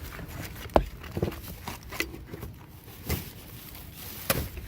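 Scattered knocks and bumps with rustling, as trash and items in a dumpster are shifted by hand; the sharpest knocks come about a second in and near the end.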